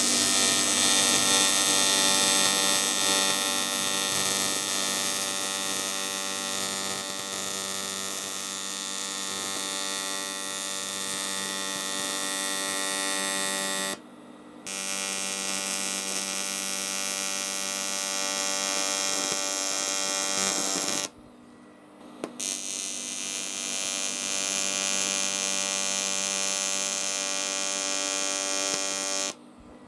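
AC TIG welding arc from an R-Tech TIG261 inverter welder, buzzing steadily as it welds a cast-aluminium oil sump. The arc stops for a moment about halfway through and again about three-quarters through, then cuts off at the end.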